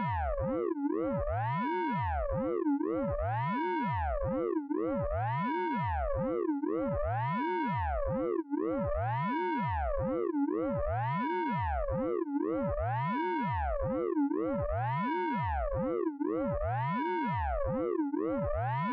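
Synthesized radar pulse-train sound effect from the Orange Vocoder plug-in: a buzzy electronic tone whose pitch sweeps up and down over and over, about once a second, at a steady level.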